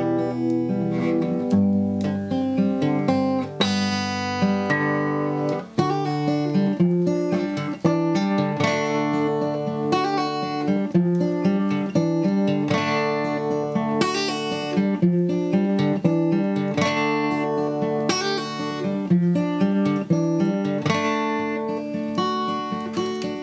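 Background music on acoustic guitar: strummed chords in a steady rhythm.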